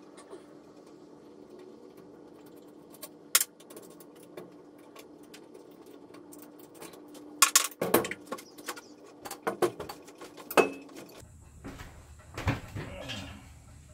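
Metal clinks and clanks of a steel trimmer rack being unbolted and taken down off a trailer's plywood wall: a sharp knock about three seconds in, then a cluster of louder clanks past the halfway point and a few more near the end.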